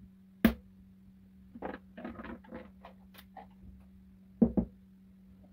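A chalk line snapped onto a plywood board, one sharp crack about half a second in. It is followed by a couple of seconds of irregular rattling and clicking as a chalk reel is handled, and two sharp knocks close together near the end.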